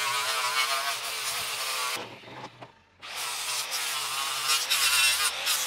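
Angle grinder running against a steel plate, its whine wavering as the disc is pressed on the metal. The sound breaks off for about a second near the middle, then the grinding resumes.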